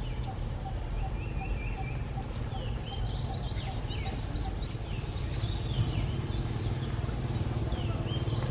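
Small birds chirping in short, high notes that slide downward, over a steady low outdoor rumble. A faint regular ticking, about three a second, stops about four seconds in.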